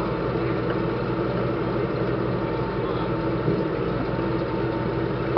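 M39 armored utility vehicle's Continental R-975 radial engine running steadily as the tracked vehicle creeps slowly along a trailer deck.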